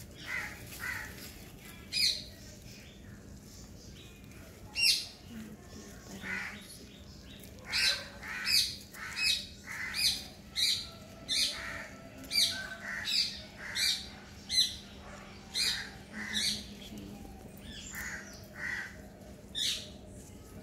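A bird calling over and over in short, separate calls. A few come early, then a steady run of about one and a half calls a second starts about eight seconds in.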